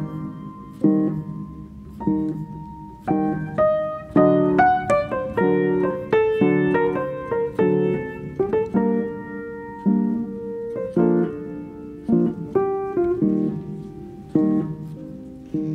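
Background piano music: a slow melody of single notes and chords that strike and then fade.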